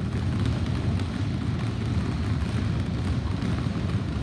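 Many basketballs being dribbled at once on a hardwood gym floor during a low ball-handling drill, the overlapping bounces running together into a steady, dense drumming of thuds.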